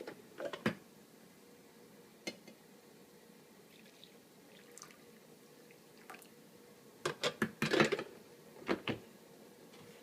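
Scattered clinks and knocks of the coffee pot and cup being handled, with a busier cluster of them about seven to eight seconds in.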